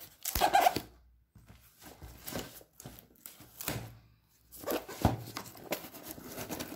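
Scattered rustling and scraping as a plastic-wrapped courier parcel is handled, with a sharp knock about five seconds in.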